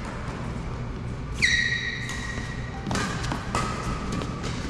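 Court shoes squeaking on a synthetic badminton court mat during a rally, the loudest squeak about a second and a half in and lasting about half a second, with two shorter squeaks about three seconds in. Around them come thuds of footwork and sharp clicks of rackets striking the shuttlecock.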